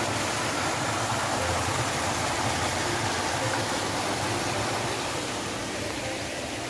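Rushing water of a small rocky stream tumbling over little cascades: a steady hiss of running water.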